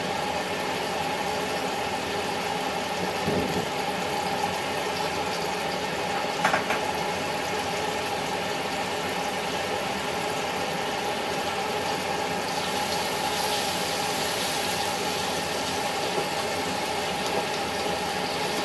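Steady mechanical hum and hiss in a kitchen while tomatoes and onions cook in a wok, with a brief knock about six and a half seconds in.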